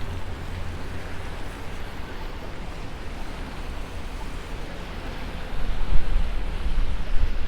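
Wind buffeting the microphone as a steady rumbling rush, gusting harder about five and a half seconds in.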